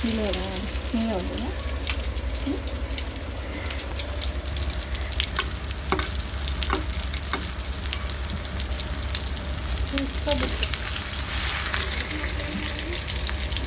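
Chicken leg pieces deep-frying in hot oil: a steady sizzle with scattered pops and crackles over a low, steady hum.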